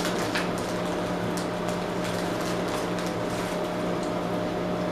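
Steady low mechanical hum with a fainter higher whine, like a room appliance running, with faint scattered clicks.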